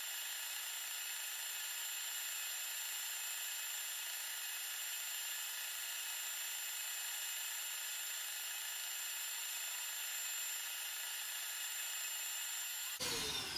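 LEGO vacuum engine and its vacuum supply running, heard as a steady high hiss with a few fixed tones. Near the end it changes abruptly to a falling whine as the machinery spins down.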